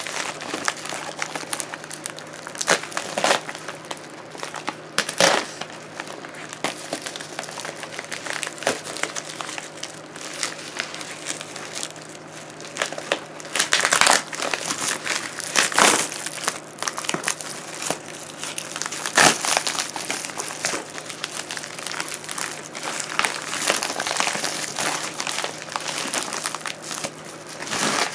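Parcel packaging being handled and torn open by hand, with irregular crinkling, crackling and tearing rustles and a few louder crunches.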